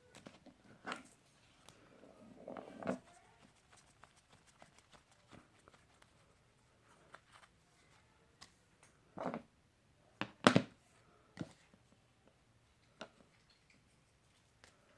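Scattered handling noises from a phone and cleaning supplies being handled while the screen is cleaned: soft rubs and light taps, with a few sharper knocks about nine to eleven seconds in.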